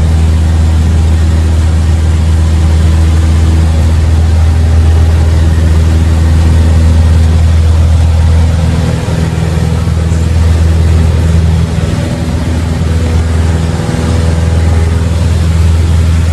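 Cessna 172's piston engine and propeller droning steadily, heard from inside the cabin as the plane rolls along the runway; the drone eases a little from about nine seconds in.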